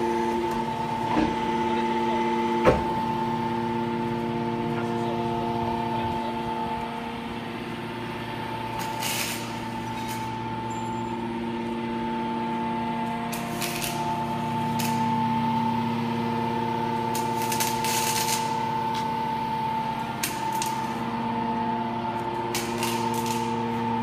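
Hydraulic scrap metal shaving baler running, its motor and pump giving a steady multi-tone hum. There is a sharp clank about three seconds in, and short bursts of hiss come every few seconds.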